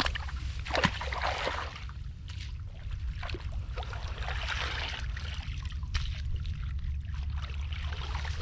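Shallow water splashing and trickling in irregular surges, over a steady low rumble.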